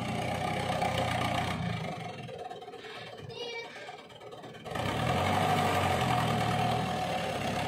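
Diesel engine of a fully loaded dump truck running and revving as it manoeuvres into a narrow alley. It eases off about two seconds in and picks up again, louder, near the five-second mark.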